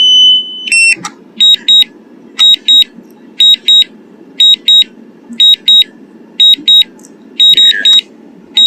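Drone remote controller sounding its low-battery alarm. It opens with a held high tone, then gives short double beeps about once a second, warning that the drone's battery is critically low.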